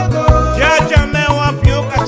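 Recorded song: a bass line and a steady drum beat, with a melodic line sliding up and down in pitch above them.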